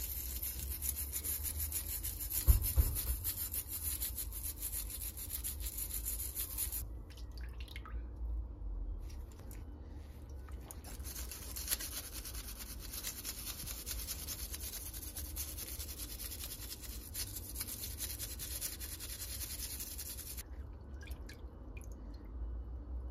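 Small wire brush scrubbing a wet, rusty metal oil-lantern part with rapid back-and-forth strokes, scouring off rust. There are two long stretches of scrubbing, with a pause of a few seconds about a third of the way in, and the brushing stops a few seconds before the end.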